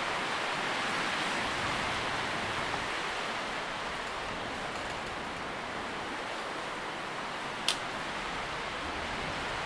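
Wind rustling through tree leaves as a steady, even hiss, with a single sharp click near the end.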